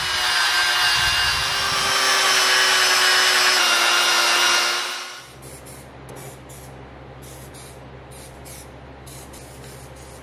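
Cordless angle grinder running against a steel tractor-attachment bracket, a steady whine with hiss, dressing the metal before painting; it stops about five seconds in. Then an aerosol spray-paint can gives a run of short hisses over a steady low hum.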